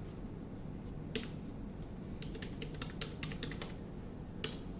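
Computer keyboard keystrokes: a password being typed in short, irregular runs of key clicks, with one louder click near the end.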